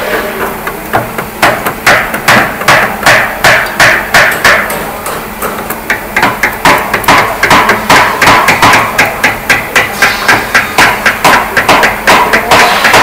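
Hammer blows on a chisel working apart a wooden chair joint: a continuous run of sharp strikes, about two or three a second, quickening to about four a second partway through.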